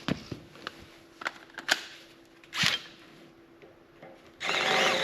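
A few light metal clicks and knocks, then about four seconds in a power drill starts up and runs steadily.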